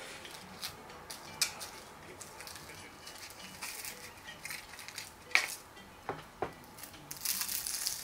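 Scattered light clinks and knocks of crockery and cutlery being handled, five or six separate strikes, with a short rustle near the end.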